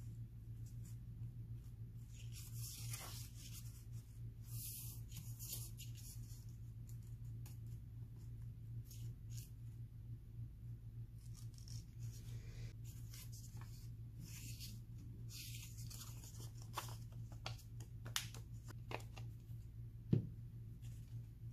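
Faint rustling and rubbing of paper as hands smooth torn black paper pieces onto spiral notebook pages, in several short swishes. A few light clicks follow, and one soft thump near the end, all over a steady low hum.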